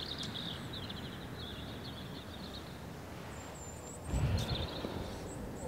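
Small birds chirping and trilling over steady outdoor background noise, with a higher squeaky call just after three seconds. A brief low rumble comes about four seconds in.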